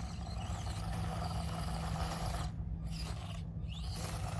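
Micro RC crawler's small electric motor and gears whirring while its tires scrabble and scrape on rock, trying to climb out of a spot where it is stuck; the drive cuts out briefly twice near the end.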